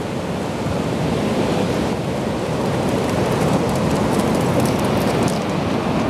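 Ocean surf breaking and washing up a flat sandy beach: a steady, dense rushing noise that builds slightly over the first second or two.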